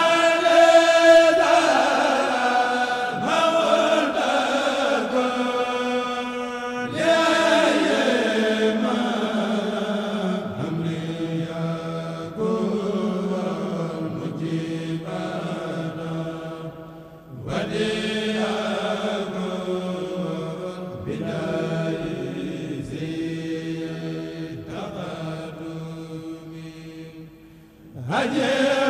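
A kourel, a group of Mouride men chanting a Khassaid qasida together through microphones. They sing in long held phrases a few seconds each, with short breaks between them.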